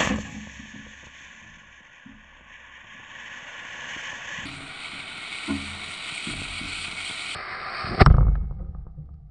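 A steady rushing noise, then about eight seconds in a single loud bang as the model rocket motor's ejection charge fires, blowing out the nose cone and parachute.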